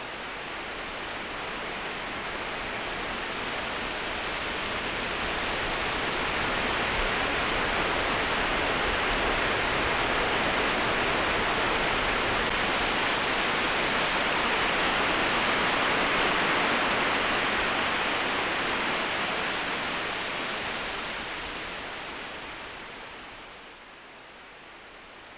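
Steady rushing hiss with no tone or rhythm, swelling slowly over the first several seconds and fading out near the end.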